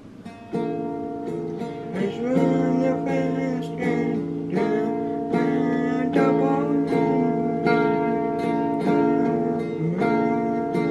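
A small acoustic guitar strummed in a steady rhythm, the same few chords ringing again and again, played as a simple cowboy song; the strumming starts about half a second in.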